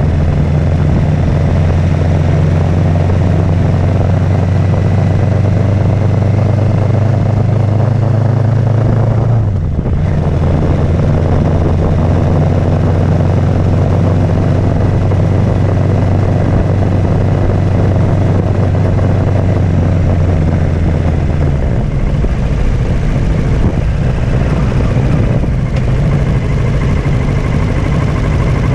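Kawasaki Z650's parallel-twin engine running steadily at low road speed, with wind and road noise. The engine note drops and breaks off briefly about ten seconds in, then returns. After about twenty-two seconds it gives way to a rougher, less steady hum.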